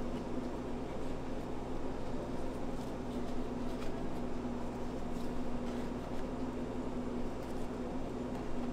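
Steady machine hum with a constant low tone, with a few faint light taps as macarons are set into a paper box.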